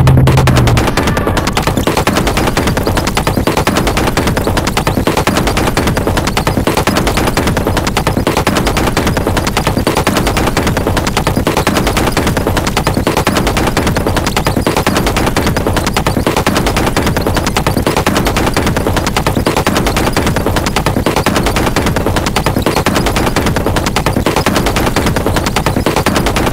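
Recorded music: a dense wall of harsh, distorted noise with a fast, even stuttering pulse throughout.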